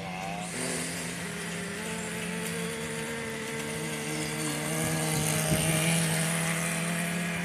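Radio-controlled model boat's motor running steadily at speed, a low hum with a faint high whine over it, getting a little louder about five seconds in as the boat comes close.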